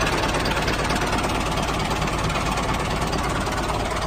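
A small engine running steadily with a fast, even knocking rhythm, typical of a mini tractor's motor at work.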